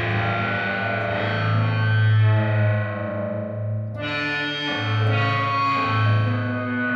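Electric guitar played through the Earthquaker Devices and Death by Audio Time Shadows pedal, giving a heavily distorted, effected tone with low notes that ring on. The top end fades away, and a fresh note is struck about four seconds in.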